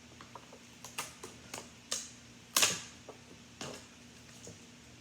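Toy packaging being handled and opened by hand: a series of scattered clicks and crinkles, with one louder crackle of packaging about two and a half seconds in.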